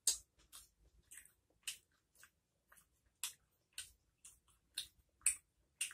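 A person chewing Hennessy-glazed chicken wings: a string of short, wet mouth smacks and clicks, about two a second.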